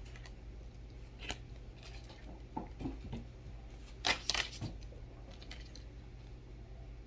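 Cards being handled and laid down: a few short rustles and snaps, the loudest cluster about four seconds in, over a steady low hum.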